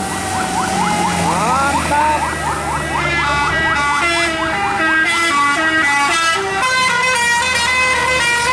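Bus 'telolet' (basuri) multi-tone musical air horn playing a tune: a quick warbling run of notes, then a stepped melody of held horn tones at about three notes a second, over a low engine rumble.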